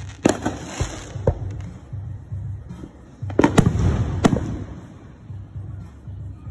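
Aerial fireworks bursting: a sharp bang just after the start and another about a second in, then three bangs in quick succession around the middle, each followed by a low rolling rumble.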